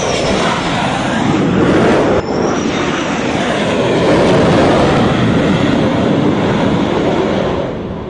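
Jet aircraft engines running loud and continuous as jets fly and move across a carrier flight deck. The sound breaks off abruptly and resumes about two seconds in, and eases off near the end.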